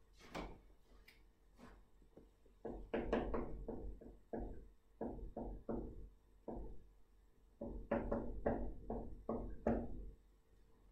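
A string of about twenty irregular light knocks and taps. They come in two runs, one starting a few seconds in and a second from about the middle to near the end.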